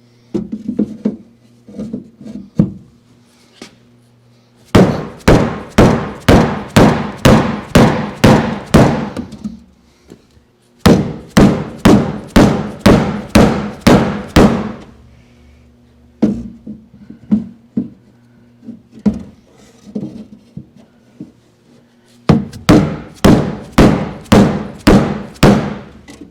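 A dead blow hammer driving a wood block against the inside of a steel car door panel to push out a dent: runs of quick, heavy strikes about two a second, with a few lighter knocks in between.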